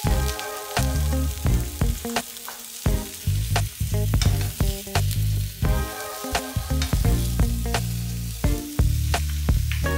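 Napa cabbage leaves hitting a hot oiled nonstick wok right at the start, then sizzling as they are tossed with two wooden spatulas. Repeated sharp clicks come from the spatulas knocking the pan and the leaves.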